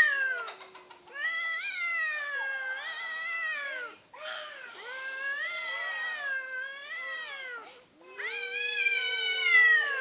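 Cats in a face-to-face standoff caterwauling: three long, wavering yowls, each several seconds long, with short breaks between. These are the threat yowls of a cat fight standoff.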